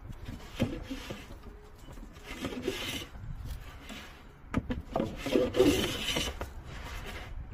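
No. 4 bench plane taking a fine shaving from the edge of a board, the sharpened iron scraping through the wood in two strokes, the second longer and louder, about halfway through.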